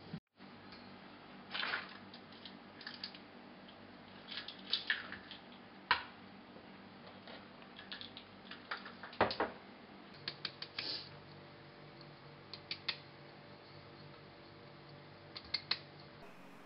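Kitchen utensils and a metal bowl being handled: scattered light clinks, taps and short scrapes, over a low steady hum.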